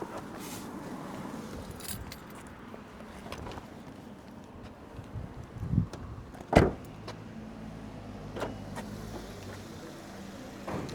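Car sounds: a steady low rumble with small clicks and jingles. Near the middle come two sharp thumps about a second apart, the second the loudest, then a few lighter clicks.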